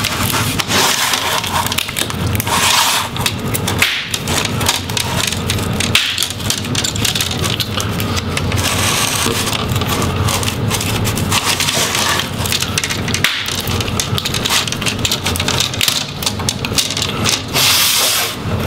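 Plastic display bezel of a laptop being unsnapped from its back cover: a dense, continuous crackle of snapping clips and flexing plastic.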